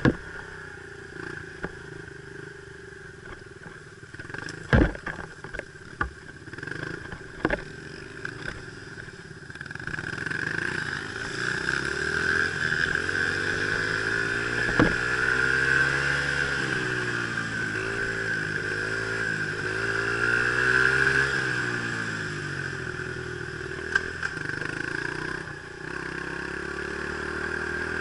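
Dirt bike engine running on a trail. Over the first eight seconds it is quieter, with a few sharp knocks. From about ten seconds in it gets louder, its pitch rising and falling repeatedly with the throttle.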